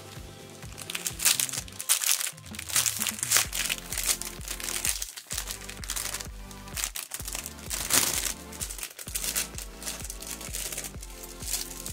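Aluminium foil crinkling and crackling as a ball-jointed doll's spare heel feet are unwrapped by hand, over background music.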